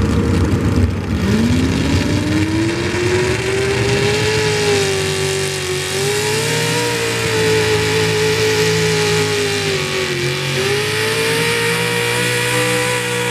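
Chevrolet square-body pulling truck's engine revving hard under the load of a pull. Its pitch climbs steeply about a second in, then holds high and wavers, sagging briefly twice as the truck pulls down the track.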